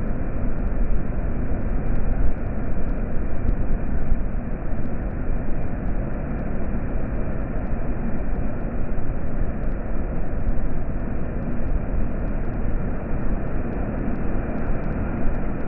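Water pouring through a dam, a steady low rushing noise that keeps up without a break.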